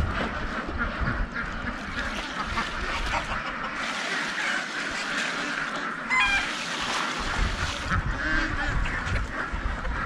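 A mixed farmyard flock of ducks and chickens calling over one another: a steady din of quacks and clucks, with one clearer call standing out about six seconds in.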